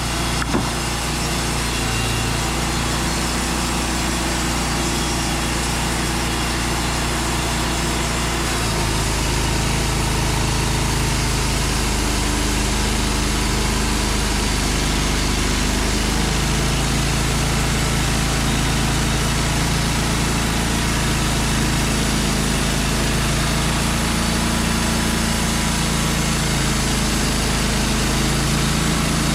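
Wood-Mizer portable bandsaw sawmill running steadily while sawing a hickory log into slabs, its engine note over a steady blade hiss. The engine pitch shifts about 8 seconds in and again around 16 seconds, as the load on the cut changes.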